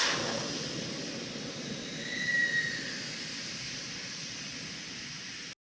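A rushing hiss of air that starts suddenly at full strength and slowly fades, with a brief high whistle about two seconds in; it cuts off abruptly near the end.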